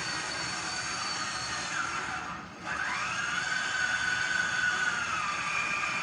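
An electric motor runs with a rushing whine. About two and a half seconds in, the pitch sinks and the sound dips, then it quickly climbs back to a steady higher whine.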